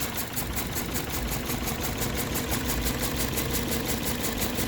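Toyota Corolla's 1.8-litre four-cylinder engine idling in drive under load, with a steady rapid pulsing: the rough running of a misfire on cylinder 3.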